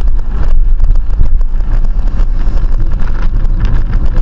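A car driving at highway speed, heard from inside the cabin: a loud, steady low rumble of tyres on the road and the engine, with some wind noise.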